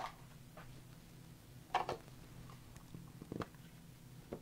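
A few faint, scattered taps and clicks of craft supplies being handled on a work table, over a low steady hum.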